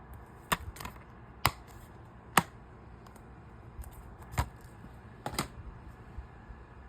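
Plastic DVD case being handled: a series of sharp, irregular clicks and snaps, the loudest about two and a half seconds in.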